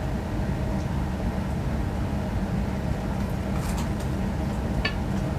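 Steady low hum of room noise, with a few faint soft clicks of someone chewing food in the second half.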